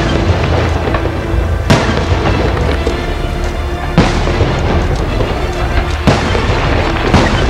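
Aerial firework shells bursting in the sky, about five sharp booms one to two seconds apart, over a continuous bed of fireworks noise with music playing underneath.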